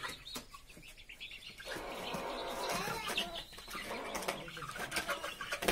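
Chickens, white roosters among them, flapping their wings and moving about, with short calls in between.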